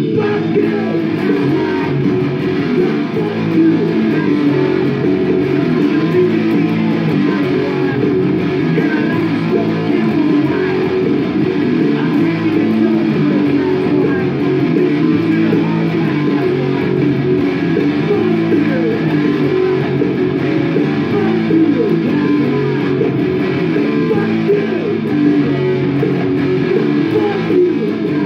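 Electric guitar playing a punk rock riff, steady and continuous.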